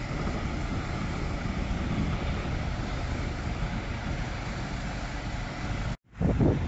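City street traffic: a city bus and cars moving slowly close by, a steady rumble of engines and tyres. About six seconds in the sound cuts out for a moment, then comes back louder with a low rumble.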